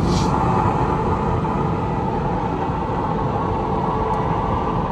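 Automatic car wash heard from inside the car: a rotating wash brush sweeps against the side window over the machinery's steady rushing noise.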